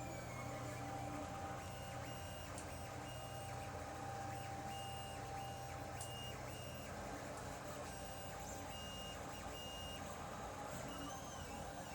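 Lulzbot TAZ 3D printer running, its stepper motors whining in many short steady high tones that start and stop as the axes move, with a couple of rising-and-falling glides near the end. A steady low hum sits underneath.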